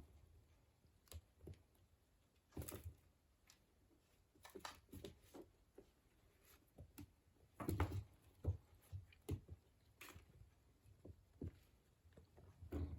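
A kitten playing on its own: scattered soft taps, scuffles and rustles, with a louder cluster about two thirds of the way through.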